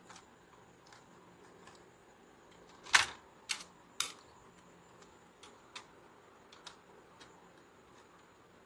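Laptop heatsink and fan assembly being fitted onto the motherboard: three sharp clicks about three seconds in, the first the loudest, with scattered light ticks of parts being handled.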